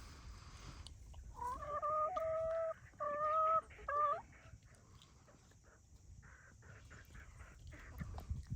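A rooster crowing once, a drawn-out call that rises at the start, holds in a few broken stretches and drops at the end.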